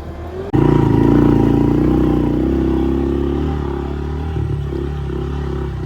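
Engine running steadily, cutting in abruptly about half a second in and holding an even note throughout.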